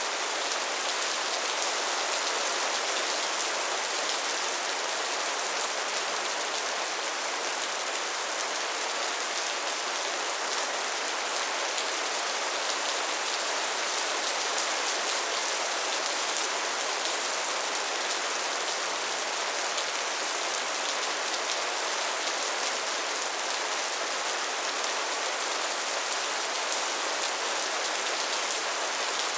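Steady rain falling: an even hiss of many fine drops on a surface, with no thunder or change in intensity.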